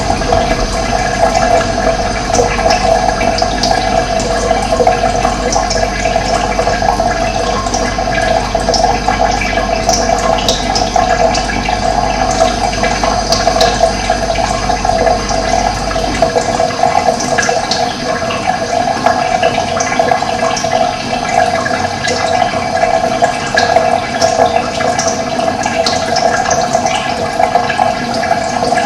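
Running water, a steady rushing flow, with small birds chirping now and then over it. A low rumble underneath cuts out a little past halfway.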